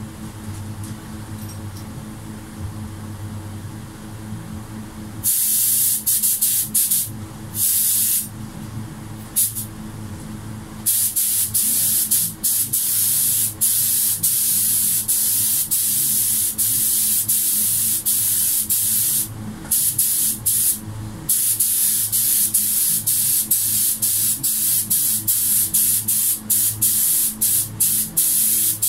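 Gravity-cup air spray gun spraying clear topcoat, a loud hiss from about five seconds in. The hiss is broken into many bursts as the trigger is released between passes. A steady low hum runs underneath.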